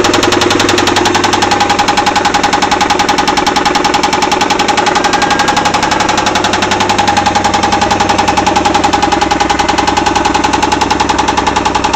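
Chevrolet Camaro engine running with a loud, rapid, even knock from a failed connecting-rod bearing: rod knock in a blown motor.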